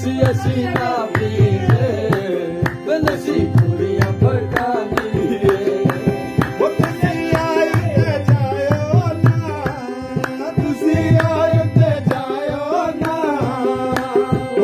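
A man singing Hindko mahiye, Pahari folk verses, over rhythmic hand clapping and drum-like percussion keeping a steady beat.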